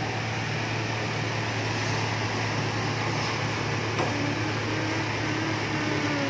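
Toyota Innova's four-cylinder engine idling steadily, heard from the open engine bay. The sound is even, with no knocking, which is taken as a sign that the engine is in normal, healthy condition.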